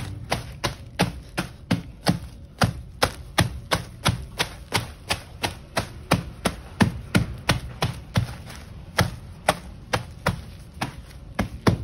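Charcoal being pounded into powder: repeated sharp crushing blows in a steady rhythm of about three to four a second.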